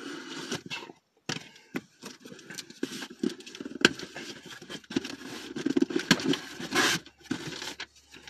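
A box cutter slitting open a package, and the packaging being handled: irregular scraping and rustling with scattered sharp clicks.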